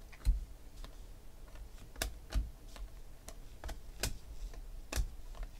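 Baseball trading cards being flipped through by hand, the card edges snapping and clicking against the stack about seven times at an uneven pace, loudest just after the start.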